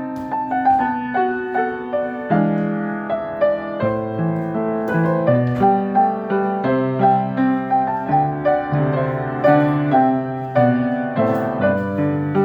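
Solo piano playing: a melody of evenly paced single notes over changing low bass notes and chords.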